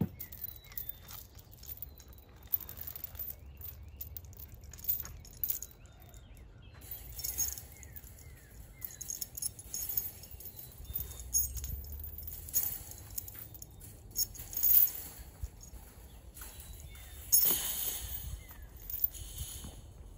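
Steel chain clinking and rattling in irregular jangles and knocks as it is handled and hooked onto a roll of welded wire fencing, the wire mesh rattling with it.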